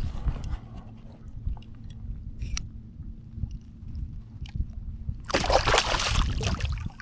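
A hooked speckled trout splashing and thrashing at the water's surface for about a second and a half, starting about five seconds in, over a steady low rumble.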